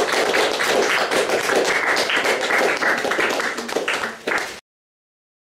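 Audience applauding, a dense patter of clapping that cuts off suddenly near the end.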